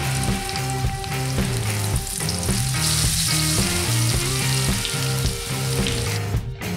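Breaded chicken cutlets frying in shallow hot vegetable oil in a cast iron skillet: a steady hiss and crackle that grows louder about three seconds in as a second cutlet goes into the oil. Background music plays underneath.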